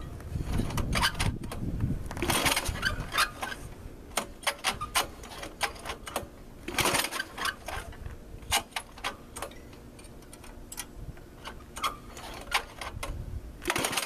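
Toro SnowHound 20 snowblower being pull-started cold, with repeated pulls on the recoil starter giving irregular clicks and clatter. The engine does not catch.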